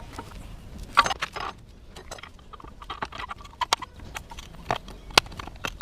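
Breaker bar turning the screw of a C-clamp press to push a worn rubber bushing out of a suspension control arm: irregular metallic clicks and knocks, with a louder scraping noise about a second in.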